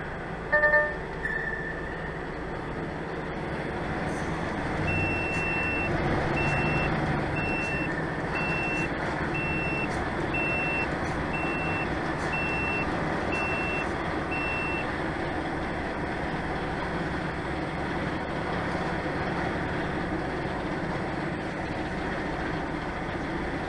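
Reversing alarm of a vehicle backing up, about eleven evenly spaced high beeps a little under a second apart, over a steady engine rumble. A short, loud tone sounds just before the beeping begins.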